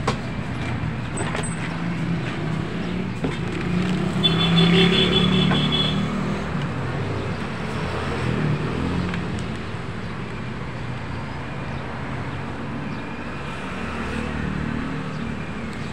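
Street traffic: motor vehicles running and passing, with a louder vehicle going by about four seconds in.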